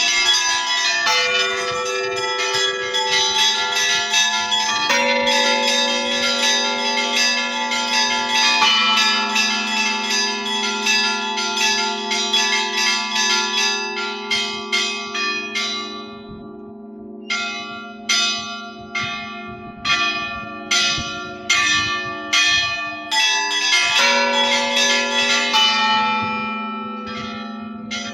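Church bells rung in a festive Easter peal: rapid, dense strikes on the small high bells over deeper bells that keep ringing on. About halfway the strikes thin out and almost pause, then the full peal picks up again near the end.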